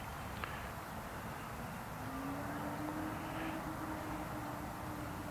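A distant engine hum that comes in about two seconds in, rises slightly in pitch and holds steady, over a constant outdoor background rumble, with one small click near the start.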